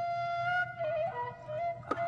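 Background music: a flute-like melody with long held notes ornamented by short trills and turns.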